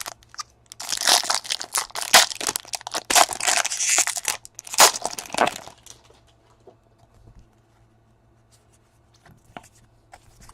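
Trading card pack wrapper being torn open and crinkled, a dense crackling for about five seconds, then only a few faint handling clicks.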